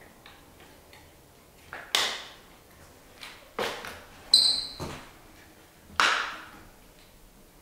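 Three sharp knocks, a couple of seconds apart, each ringing off the hard tiled walls. A short, high-pitched ping, the loudest sound, comes about four seconds in.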